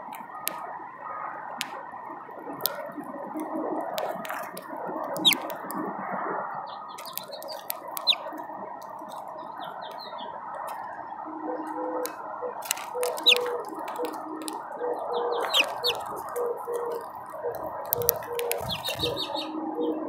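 House finches feeding at a seed feeder: sharp, irregular clicks of beaks cracking seed and tapping the tray, with short high bird chirps now and then. A steady background hum runs underneath, and a low two-tone hum comes in about halfway through.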